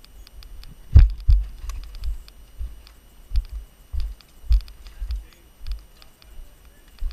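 Mountain bike riding over rocky singletrack: irregular thumps and knocks from the tyres and frame hitting stones, with rattling clicks in between. The hardest knock comes about a second in.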